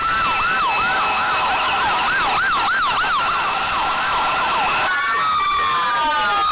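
Electronic siren sounds, several at once: a fast yelping wail about three times a second over steady tones, changing about five seconds in to slower sweeping wails.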